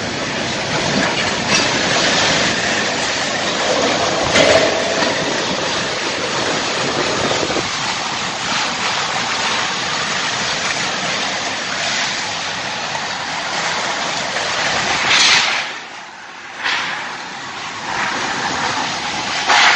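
Storm wind and rain: a loud, steady rush that swells and eases in gusts. It drops away briefly about three-quarters of the way through, then returns in gusts.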